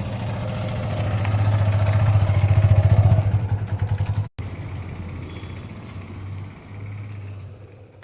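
Modified Yamaha FZ motorcycle's single-cylinder engine running near idle through a loud aftermarket exhaust, with a steady, quick pulsing beat. It swells louder over the first three seconds, cuts out for an instant about four seconds in, then carries on more quietly.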